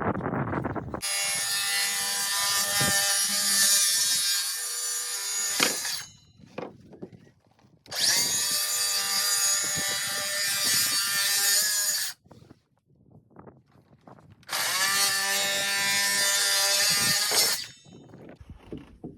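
Ryobi chop saw (compound miter saw) with a fine-tooth blade running and cutting wood three times, each run a few seconds long with a whining motor, separated by short quiet gaps with a few knocks.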